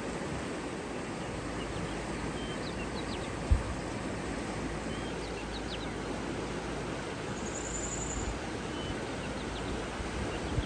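Outdoor nature ambience: a steady rushing noise with a few faint bird chirps scattered through the middle and a brief high trill near the end. A single low thump comes about three and a half seconds in.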